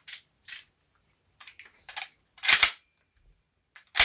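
Controls of a G&G GK5C airsoft rifle clicking as they are worked by hand: a few light clicks, a louder clack lasting a moment about two and a half seconds in, and a sharp click near the end.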